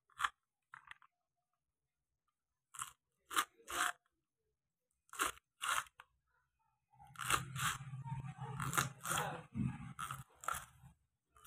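A kitchen knife cutting through crisp green beans on a wooden chopping board. It starts as single crunching cuts a second or so apart, then turns into a quicker, denser run of chopping about seven seconds in.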